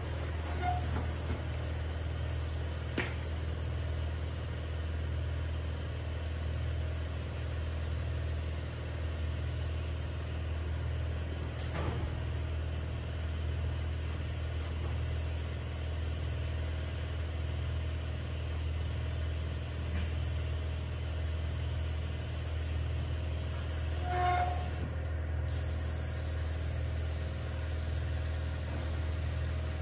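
Steady low hum of a hot melt glue unit, with a few light clicks as the handgun is handled. Near the end a high air hiss starts as the handgun's swirl-spray nozzle sprays hot melt.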